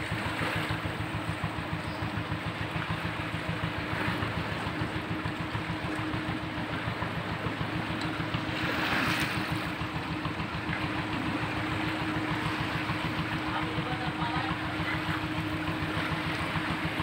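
A small boat's engine runs steadily with a fast even pulse, under the wash of water along the hull. There is a brief louder rush of water about halfway through.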